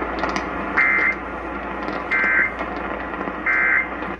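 Emergency Alert System end-of-message data bursts: three short, harsh digital SAME tone bursts about 1.3 s apart, closing the severe thunderstorm warning, over steady radio hiss.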